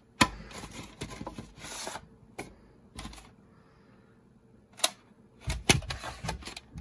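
Handling of a VHS cassette and its case: sharp plastic clicks and rustling as the tape is taken out and turned in the hand, with a cluster of clicks and knocks near the end.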